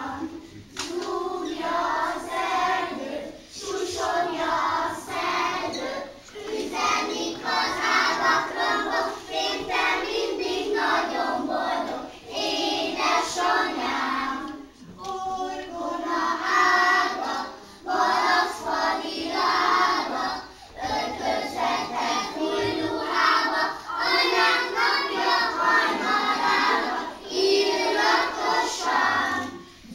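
A group of young kindergarten children singing a song together, in phrases with short breaks between them.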